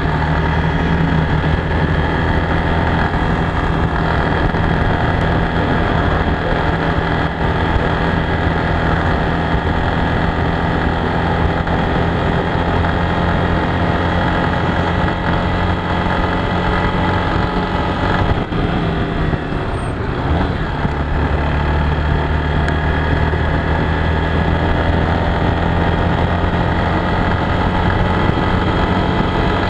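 Honda Bros single-cylinder four-stroke trail motorcycle engine running steadily under way. The engine note breaks and settles at a new pitch about two-thirds of the way through.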